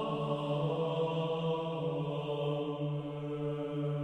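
Slow sacred chant-like music on long held low notes, stepping down to a lower note right at the start and holding it.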